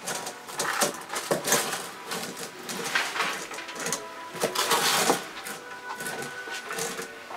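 Rustling, crinkling handling noise with scattered clicks as braided PET sleeving is measured out against wires, the loudest stretch about four to five seconds in.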